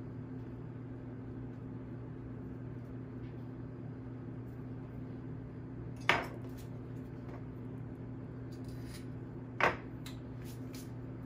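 Two sharp clicks, about three and a half seconds apart, of a bread lame being set down on a granite countertop. A steady low hum sounds throughout.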